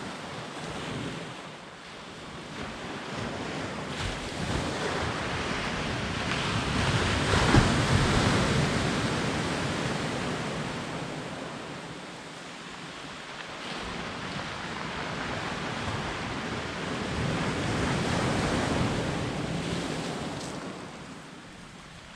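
Surf washing in on the shore, swelling and fading twice about ten seconds apart.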